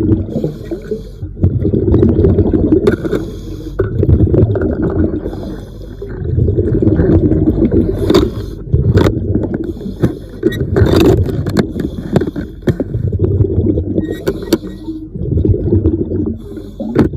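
Underwater breathing sounds of a diver: exhaled air bubbling out in repeated rumbling bursts about every two seconds, with scattered sharp clicks and scrapes.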